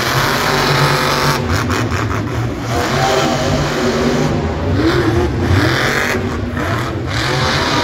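Monster truck's supercharged V8 engine revving hard, its pitch rising and falling repeatedly, loud and echoing through the stadium.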